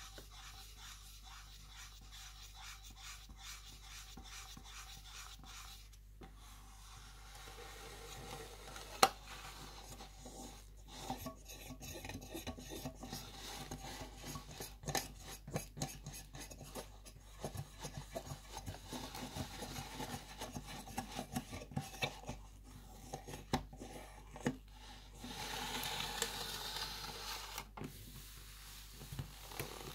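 Leather gloves rubbing over an aluminium drink can, then crinkling and crumpling a foil crisp packet from about ten seconds in, with many small sharp crackles and one sharp tap about nine seconds in.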